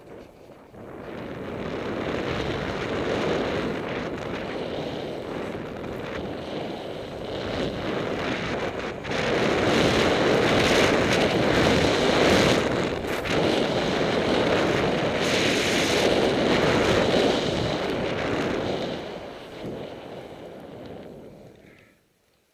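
Wind rushing over a moving camera's microphone during a ski run down a powder slope: a steady rushing noise that grows louder through the middle and fades out near the end.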